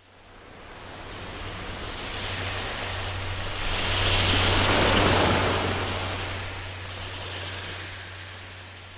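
A rushing sound effect of wind or surf that builds to a peak about halfway through and then slowly fades, over a steady low hum.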